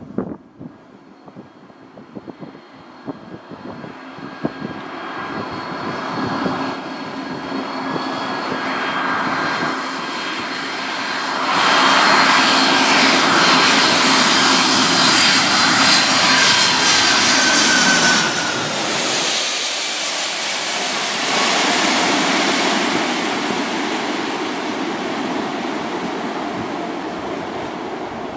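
Large four-engine turbofan jet transport passing low on approach. The engine roar and fan whine build over several seconds and are loudest for about six seconds. The whine drops in pitch as the aircraft goes by, and the sound then slowly fades.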